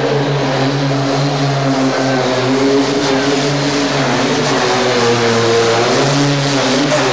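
Modified pulling tractor engine running hard under load during a pull, loud and steady, its pitch wavering up and down.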